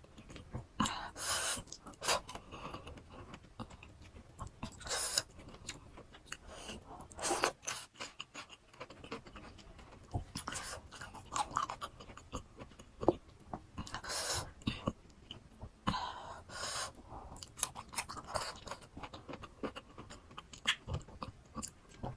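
Close-up chewing and crunching of crisp raw fruit, with a louder crunchy bite every few seconds among steady wet chewing.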